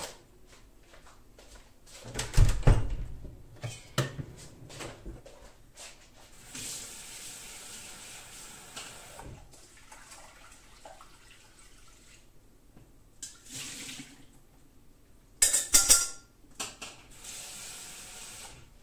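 Kitchen tap running into the sink in several short spells, with clatter of pots and utensils. A heavy clunk comes about two seconds in, and a loud sharp splash or clatter near the end.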